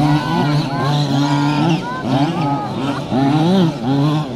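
Several 1/5-scale petrol RC racing trucks' small two-stroke engines running together, their buzz rising and falling in pitch as they rev up and back off around the track.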